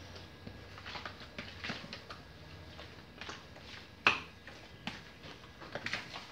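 Hands squeezing and turning raw chicken drumsticks and thighs in a plastic bowl to rub in seasoning: soft wet squelches and scattered small clicks, with one sharp knock against the bowl about four seconds in.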